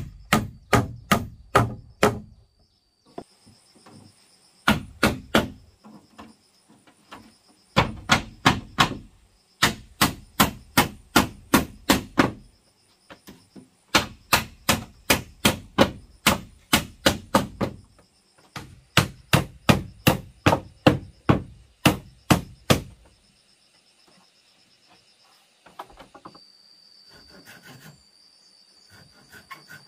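Hammer blows on wood in quick runs of several strikes, about four a second, with short pauses between runs: nails being driven into plank boards. Near the end the hammering stops and a hand saw starts rasping faintly through wood.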